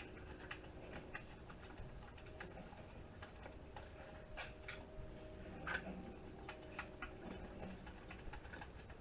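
Light, irregular clicks and taps of small metal parts and hand tools as brass standoffs are worked loose from a network switch's circuit board, over a faint steady hum.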